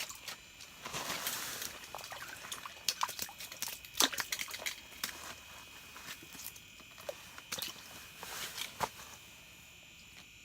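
Hands handling an ice-fishing rod and tangled line: scattered clicks, taps and rustling that stop about a second before the end, over a faint steady high hum.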